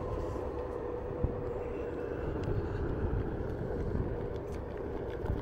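Onewheel GT electric board rolling along pavement: a steady hub-motor whine over a low rumble of the fat tyre and wind, with a single short click about a second in.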